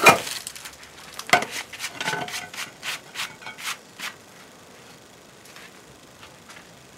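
Old terracotta roof tiles and scrap wood knocking and scraping together as they are pulled from a pile by gloved hands. A loud knock comes at the start, followed by a quick run of clacks that stops about four seconds in.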